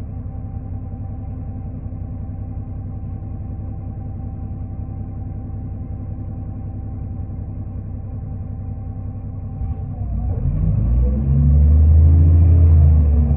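Diesel engine of a 2005 New Flyer D40LF transit bus heard from inside: a steady low rumble with a faint thin whine, then about ten seconds in the engine revs up, rising in pitch and getting louder as the bus accelerates.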